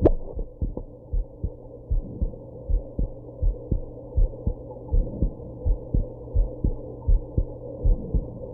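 A human heartbeat heard close against the chest: a steady, even run of muffled low thumps, often in lub-dub pairs. One sharp knock sounds right at the start.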